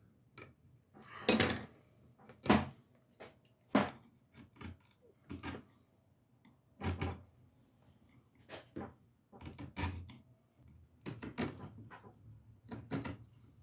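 Irregular wooden creaks and knocks, a dozen or so short bursts, as a glued joint of an antique wooden chair is wiggled and worked loose.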